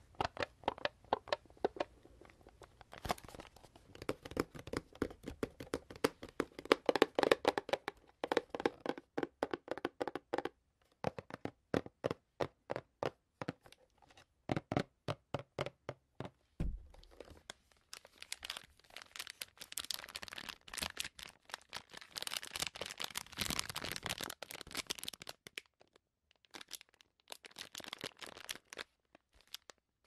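Long fingernails tapping rapidly on a small cardboard candy box close to the microphone, a dense patter that thins out to separate taps. Further on, fingernails tap and scratch on a large cardboard box, with hissier scraping runs.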